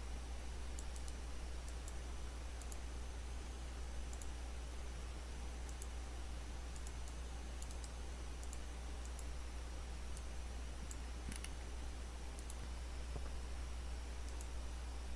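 Light, scattered computer mouse clicks, about twenty of them at irregular intervals, over a steady low electrical hum and hiss from the recording setup.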